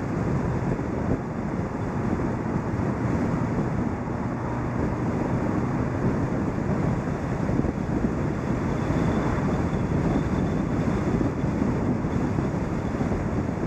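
Car driving at speed: a steady rush of wind buffeting the microphone, mixed with tyre and road noise, picked up by a camera mounted on the car's bonnet.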